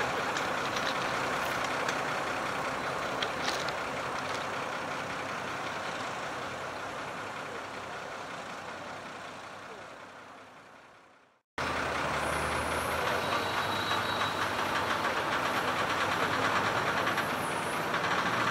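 Heavy diesel engines of a mobile crane and a heavy haulage truck running steadily while a locomotive hangs from the crane during the lift. The sound fades away to silence about eleven seconds in, then cuts straight back in at the same steady level.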